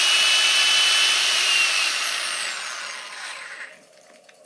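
Electric drill running at speed with a high motor whine, then winding down in pitch as the trigger is released and stopping a little over halfway through.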